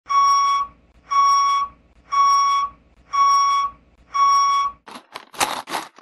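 Construction vehicle's reversing (backup) alarm: five steady single-pitch beeps, about one a second. Near the end, a few quick scraping strokes follow.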